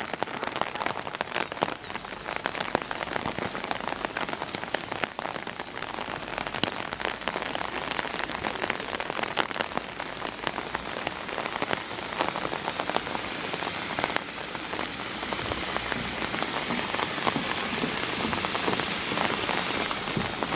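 Steady, dense patter of falling water, many small drops striking a surface, growing somewhat louder about two-thirds of the way through.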